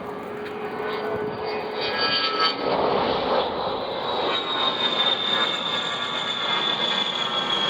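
A USAF A-10 Thunderbolt II's twin TF34 turbofan jet engines flying past. The sound grows louder with a rushing swell about three seconds in, then a high-pitched jet whine that slowly drops in pitch.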